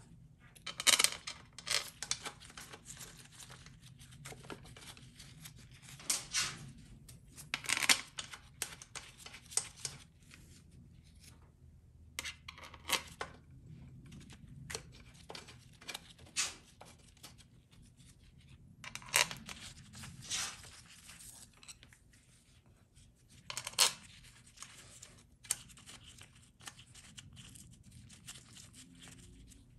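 Scattered metallic clicks and clinks with glove rustling as the pump-to-case bolts are set into the holes and threaded by hand on a GM TH400 transmission pump.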